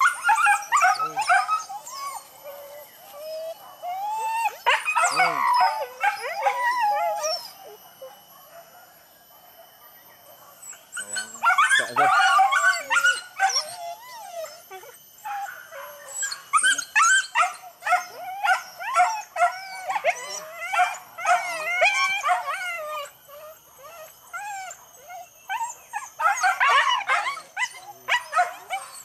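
Hunting dogs baying and yelping in repeated bouts of high, excited cries as they work after wild boar, with a lull of a few seconds about a third of the way through.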